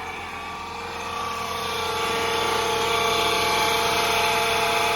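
Running engine of a 2016 Honda Civic with a loud, steady whining noise from its A/C compressor, which gets louder about two seconds in. The mechanic traces the noise to the underside of the compressor and suspects its pulley.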